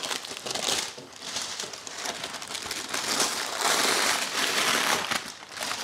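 Parchment (baking) paper crinkling as a sheet is pulled off its boxed roll and handled, with irregular rustles, loudest a little past halfway.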